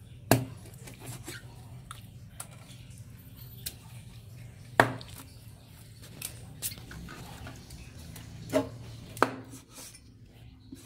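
Knife chopping python skin on a wooden chopping board: a few sharp knocks of the blade striking the board, about four loud ones with quieter taps between.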